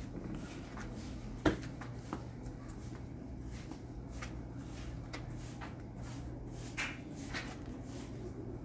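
A child's balance bike being pushed along on concrete: feet scuffing and small knocks, with one sharper knock about a second and a half in, over a steady low hum.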